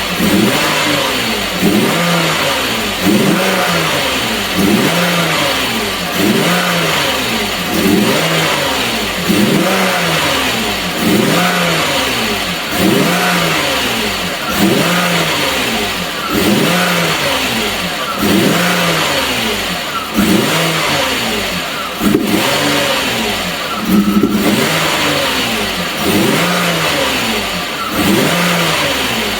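Alfa Romeo 164's 2.0 V6 turbo engine revving over and over: each time the pitch jumps up sharply and then falls away, about every second and a half to two seconds.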